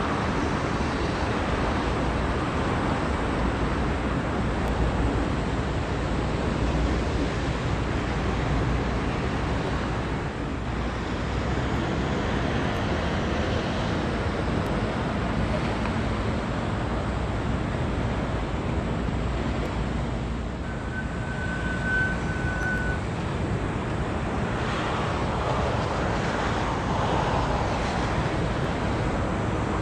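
Steady outdoor noise of wind, water and distant traffic. A short, high, steady whistle-like tone sounds for about two seconds, roughly two-thirds of the way through.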